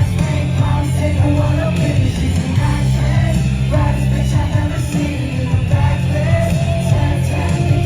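Loud music with a heavy, steady bass and a voice singing over it.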